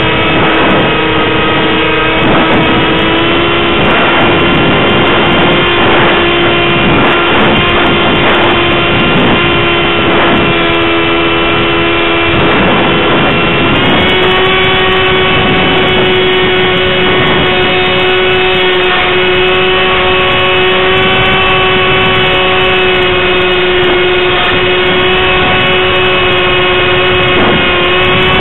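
Electric motor and propeller of an RC plane running at flight throttle, heard from the onboard camera as a steady whine over rushing air. The pitch steps up slightly about three seconds in and again about halfway through as the throttle is opened.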